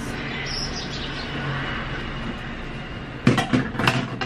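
Clothes being handled for hanging to dry, with a cluster of sharp knocks and rattles about three seconds in, over a steady background rumble.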